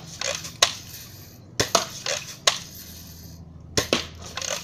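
A series of sharp metallic clicks and clanks, about six of them, irregularly spaced.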